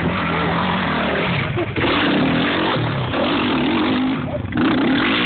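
Dirt bike engines revving hard, their pitch rising and falling as the throttle is worked on a steep climb; the sound grows louder about two seconds in.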